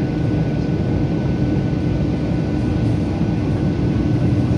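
Cabin noise of a Boeing 737-800 descending on final approach: the steady drone of its CFM56 jet engines and the airflow past the fuselage, with a steady hum running through it.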